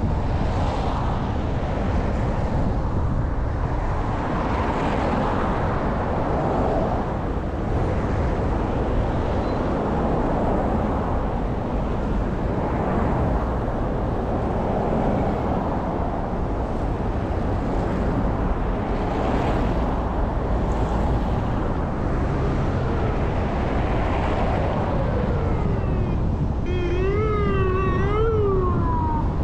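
Road noise of a car driving through wet, slushy city streets, heard from a camera mounted outside the car: a steady rush of tyres and wind. Near the end a pitched tone wavers up and down a few times.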